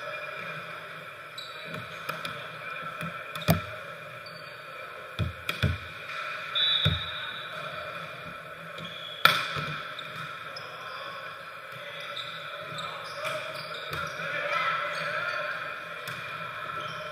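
A volleyball being hit and bounced on a hardwood gym floor: a handful of sharp smacks, two close together about five seconds in and the loudest near the middle, ringing in a large gymnasium over a steady hum of the hall.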